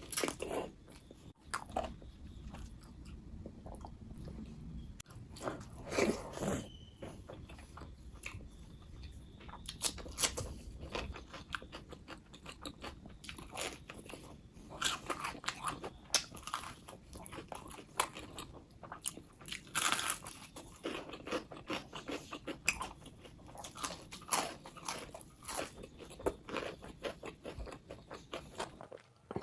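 Close-miked eating: a person biting and chewing crispy fried food and curried chicken, with many irregular crunches and mouth sounds.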